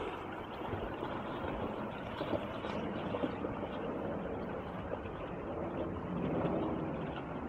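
Steady rush of a storm-swollen creek's fast, muddy current.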